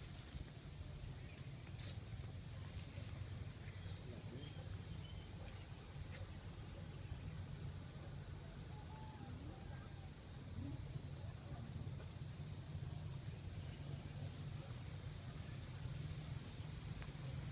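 A steady, high-pitched chorus of insects shrilling without a break, with a low steady rumble beneath.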